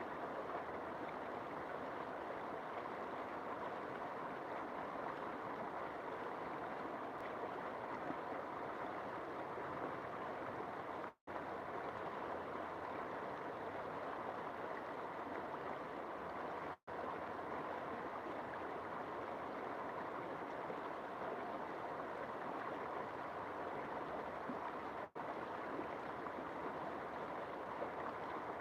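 River water running in a steady, even rush, with no change in strength, broken three times by a split-second dropout where the sound cuts out entirely.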